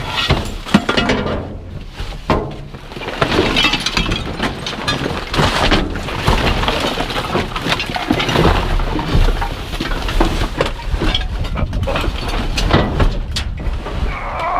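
Trash being shifted and rummaged through in a dumpster: a steady run of clattering, knocking and clinking of hard objects, some of them glassy.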